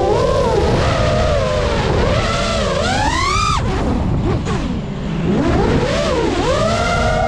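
Geprc Mark 5 FPV quadcopter's brushless motors and propellers whining, the pitch rising and falling with the throttle. The whine climbs to a peak about three and a half seconds in, cuts off sharply as the throttle is chopped for a dive, sinks lowest around five seconds, then rises again. Wind rumbles on the microphone underneath.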